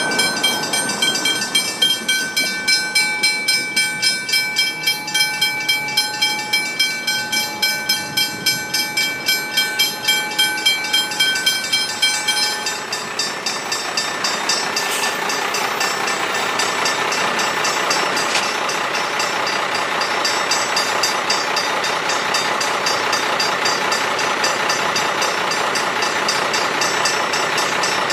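Level crossing bells ringing in a fast, even rhythm of about three strokes a second while the boom gates come down, falling silent about 13 seconds in once the gates are down. A steady rushing noise then builds up, typical of an approaching train.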